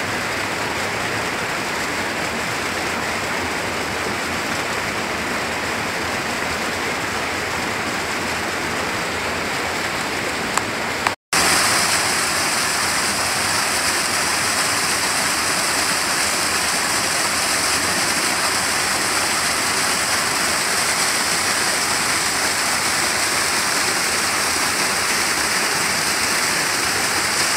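Steady rush of flowing water from a rocky mountain stream. A brief dropout comes about eleven seconds in, and after it the rush of a small waterfall cascading over boulders is a little louder, with more hiss.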